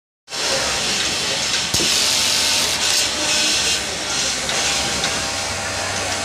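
Steady, loud hissing din of a garment factory floor, with industrial sewing machines running, over a low motor hum. It starts abruptly, and one sharp click comes about a second and a half in.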